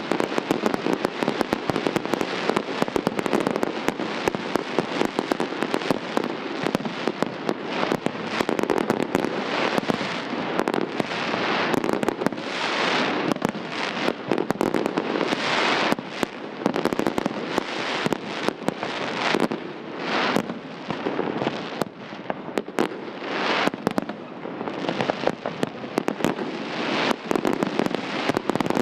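Aerial fireworks display: a dense, continuous barrage of shell bursts, many bangs a second mixed with crackling, with no let-up.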